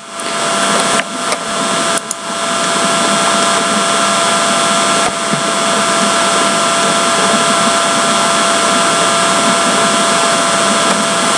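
Steady whirring machine noise with a few constant hum tones running through it, like a fan or small motor. It builds up over the first couple of seconds, then holds level.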